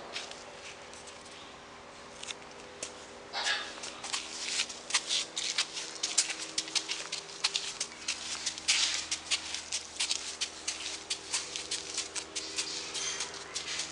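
Quick, irregular crisp clicks and scuffs of footsteps on gritty ground, growing busier about three seconds in, over a faint steady hum.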